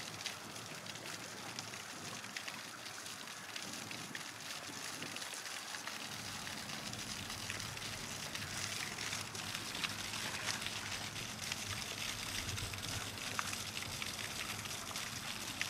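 Garden fountain's jet falling back as spray into a stone basin: a steady splashing patter of water drops, slightly fuller about six seconds in.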